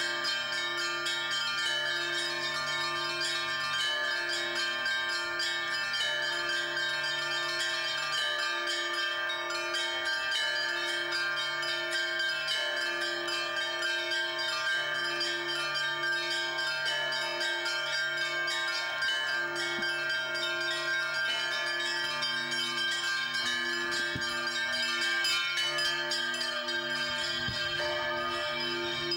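Cathedral church bells ringing continuously, several bells of different pitch together: a lower bell strikes about once a second under a dense jangle of smaller bells.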